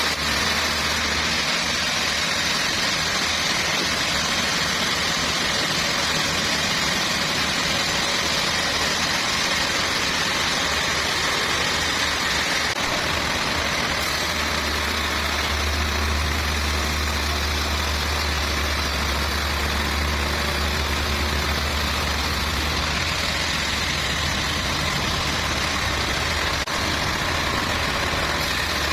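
Sawmill machinery running steadily: an engine hum under a continuous hiss, the low hum growing stronger about halfway through.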